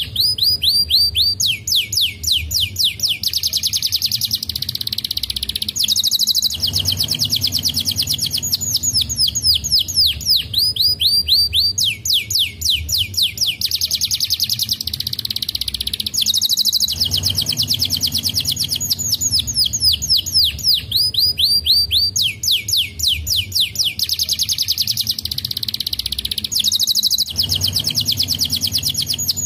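Domestic canary singing: long rolling trills of rapid repeated notes that change speed from one phrase to the next. The same run of phrases comes round about every ten seconds.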